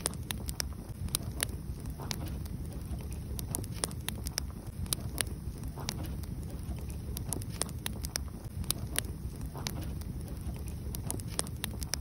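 Wood logs burning, with a steady low rush from the flames and frequent irregular sharp crackles and pops.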